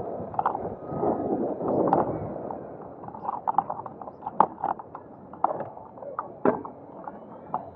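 Power wheelchair rolling over uneven pavement, its frame rattling and knocking in a run of irregular sharp clicks from about three seconds in, after a couple of seconds of rushing noise.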